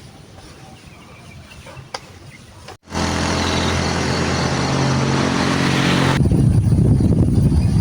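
A motor vehicle engine running close by, starting abruptly about three seconds in after a quieter stretch with one light click. Near the end it turns into a rougher, louder low rumble.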